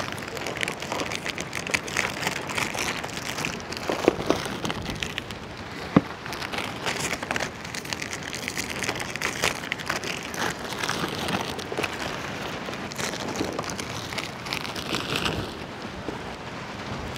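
Plastic Oreo packets crinkling and rustling as they are torn open, with cookies clattering onto a metal tray, a dense run of small irregular clicks and a few sharper knocks, the sharpest about six seconds in.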